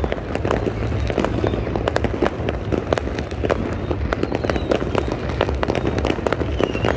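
Fireworks going off all around: a dense run of overlapping bangs and crackles over a steady low rumble of distant bursts.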